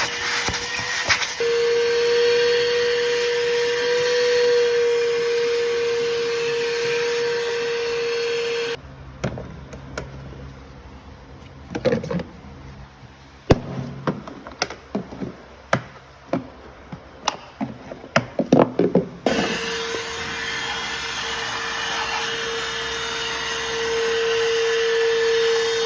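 Milwaukee M18 FUEL PACKOUT cordless wet/dry vacuum running with a steady rushing noise and a steady whine. About nine seconds in, the vacuum sound gives way to some ten seconds of scattered knocks and clicks. The vacuum then runs again to the end.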